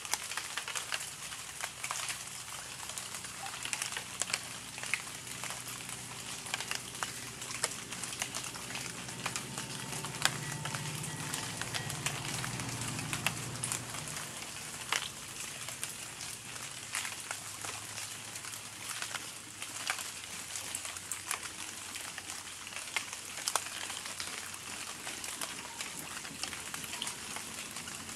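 Steady rain falling, with many separate drops striking close by, and a low rumble swelling for a few seconds near the middle.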